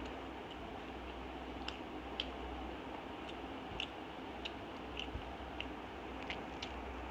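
Faint wet mouth sounds of a person chewing dhuska and potato curry: soft clicks and smacks about every half second, over a low steady hum.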